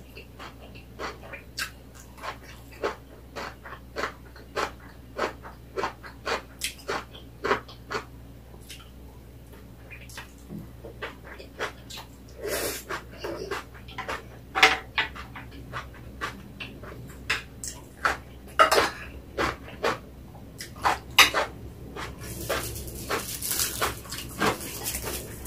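Close-up chewing and lip-smacking of crunchy napa cabbage kimchi, about two short wet clicks a second, with louder bites in the middle. Near the end, a dry crinkling rustle of a sheet of roasted seaweed (gim) being picked up.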